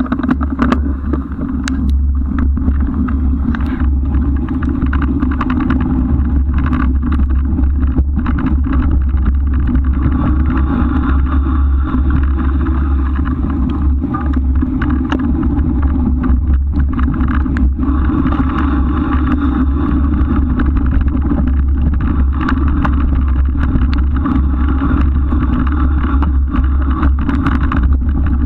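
Steady rumble of wind and rolling tyres picked up by a camera mounted on the back of a moving bike, with many small clicks and rattles throughout.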